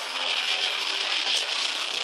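Metal band playing live: distorted guitars, drums and vocals, overloaded into a dense, trebly wash of noise with no bass.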